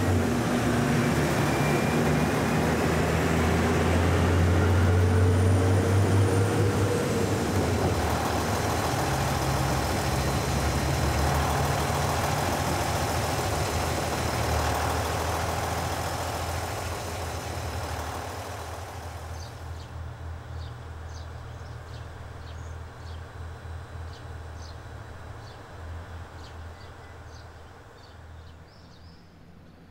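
Diesel railcar engines at a station: a train pulling out, its engine note rising as it accelerates, then fading away into the distance, with a steady low engine hum from a stopped train underneath.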